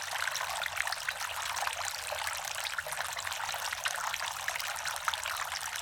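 Water trickling and splashing as it cascades down the tiers of a two-tier resin garden fountain, a steady patter of small drops.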